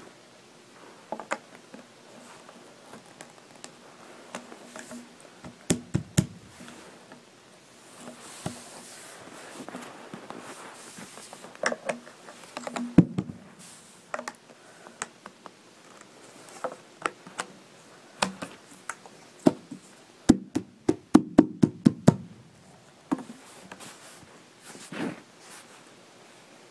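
Irregular knocks and taps from parts being handled and fitted together during hands-on assembly work, with a quick run of about eight knocks a little past the middle.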